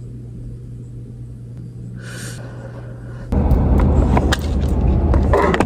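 A quiet steady low hum, then about three seconds in a car's engine and road rumble heard from inside the cabin, much louder, with a few light clicks over it.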